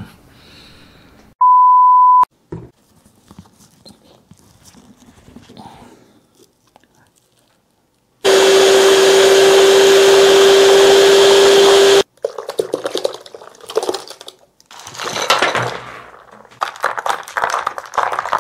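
Electric hand mixer running for about four seconds, a steady whine as its beaters blend watermelon flesh into juice inside the hollowed fruit, then cutting off sharply. A short high beep sounds about a second and a half in. After the mixer stops there are intermittent stirring and sloshing noises as a spoon works the juice.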